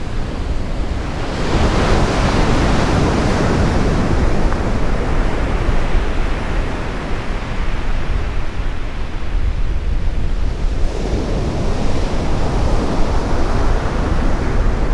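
Sea surf breaking on a sandy beach, one wave surging in a second or two in and another near the end, with wind rumbling on the microphone throughout.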